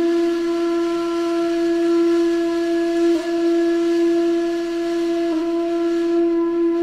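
One long note from a wind instrument, held at a steady pitch, with two brief wavers about three and five and a half seconds in.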